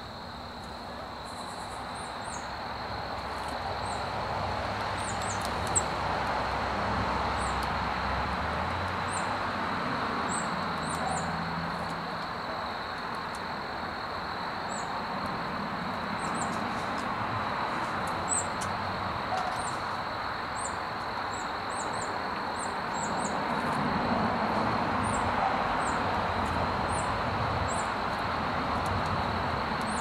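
Outdoor backyard ambience: a steady wash of noise with a constant high insect drone and frequent short, very high chirps. There are two sharp taps, one about six seconds in and one about eighteen seconds in.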